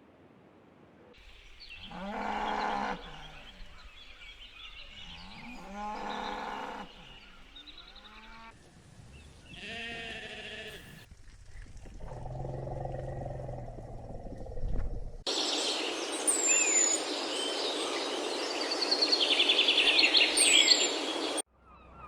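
A run of different animal calls, cut one after another: two long pitched calls, like farm animals, a few seconds apart, then a cluster of shorter calls, a low hum, and a loud noisy stretch with high chirps that cuts off suddenly near the end.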